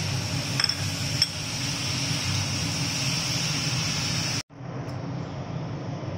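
A spatula stirring dry semolina in a pan, clinking sharply against the pan twice about a second in, over a steady background hum. The sound cuts out for a moment about four and a half seconds in, then the hum resumes.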